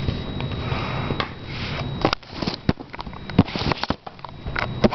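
Plastic parts of a Transformers Human Alliance Bumblebee action figure being handled: a soft hissing rub for about two seconds, then several sharp plastic clicks as a panel is folded into place and the figure is set down.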